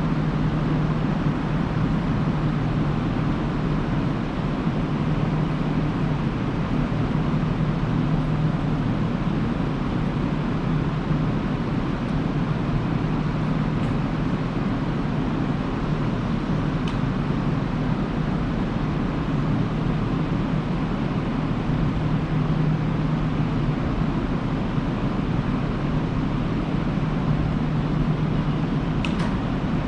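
Steady low hum and rumble of railway station ambience, with a train's electrical machinery humming at an unchanging pitch that swells and fades slightly.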